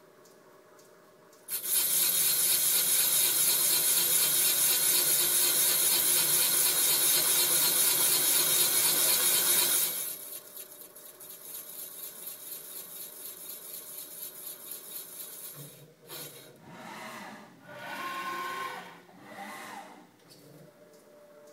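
Machining of a Honda B18 engine block for stainless O-ring wire. A loud, high hissing starts about a second and a half in and stops sharply about ten seconds in. Quieter pulsing machining noise follows, then a few rising and falling whirs near the end.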